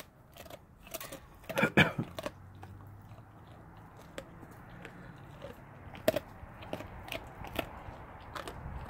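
Blue Bay Shepherd chewing a raw turkey carcass: irregular wet crunching and cracking of bone, loudest in a burst of bites about two seconds in, then single cracks every second or so.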